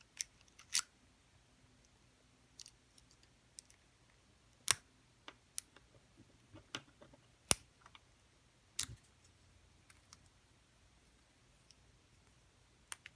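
Short hook pick and tension wrench working inside a Magnum No. 240 padlock: scattered, irregular small metallic clicks as the pins are lifted, with two sharper clicks about 5 and 7.5 seconds in.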